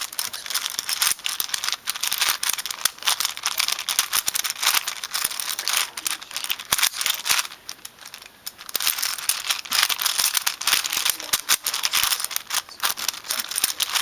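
5x5 Rubik's cube being turned quickly by hand: a dense run of plastic clicks and clatters as its layers snap round, pausing briefly twice, about six and a half and eight seconds in.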